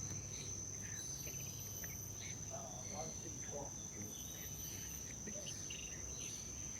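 Steady, high-pitched insect drone of tropical crickets or cicadas, with scattered short chirps.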